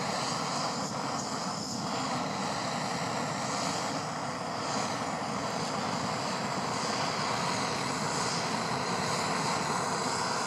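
Backpacking gas canister stove burning steadily, heating a stainless steel water bottle set on its pot supports.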